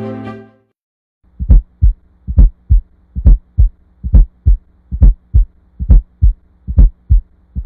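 Heartbeat: steady paired lub-dub thumps, about 70 beats a minute, over a faint steady hum. Music fades out just before the beats begin.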